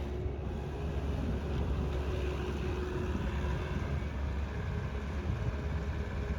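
Bobcat S570 skid steer's 61-horsepower diesel engine running steadily with a low rumble.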